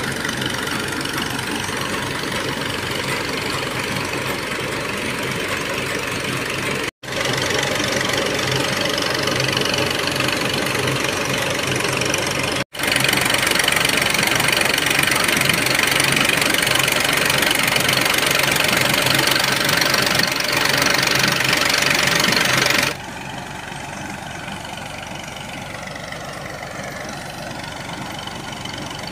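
Tractor's diesel engine running steadily under load as it powers a tube-well boring rig, with muddy water from the bore gushing out of the outlet pipe into a pool. The sound cuts out briefly twice, is loudest in the middle, and is quieter after about 23 seconds.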